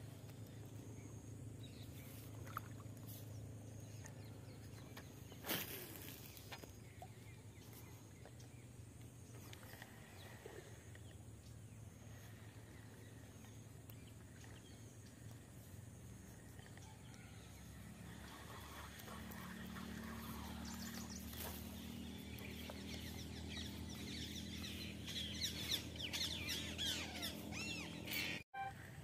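Faint open-air marsh ambience under a steady low hum, with one sharp click about five seconds in. Birds chirp near the end.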